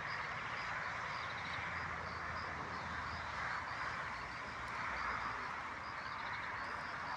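A steady chorus of calling animals: a dense continuous buzz with short high chirps and small trills repeating every half second or so, over a low rumble.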